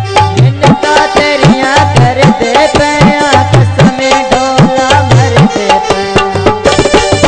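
Instrumental interlude of a Punjabi folk song: tabla playing a fast rhythm, its bass strokes bending up in pitch, under held melodic notes.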